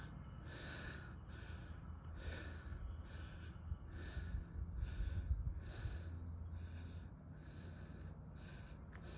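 A hiker breathing hard while walking: quick, even breaths, about three every two seconds, over a low rumble.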